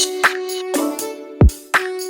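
Background music with a steady beat: a kick drum about once a second under held melodic notes, with lighter percussion hits between.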